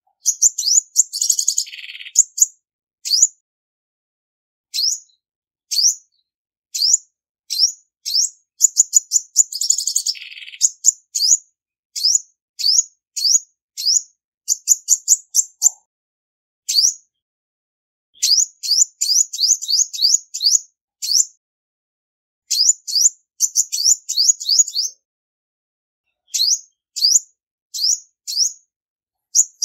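Female olive-backed sunbird calling: short, sharp, high rising chip notes, some single and some in quick runs of four to eight, with a buzzy falling note about a second in and another about ten seconds in. No background noise between the calls.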